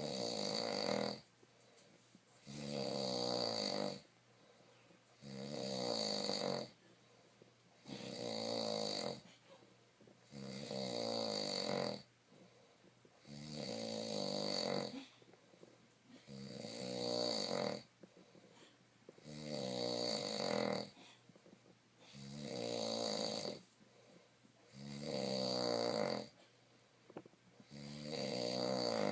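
A sleeper snoring in a steady rhythm. Each snore is a buzzy, pitched drone about a second and a half long, one every three seconds or so, with quiet breaths between; about ten snores in all.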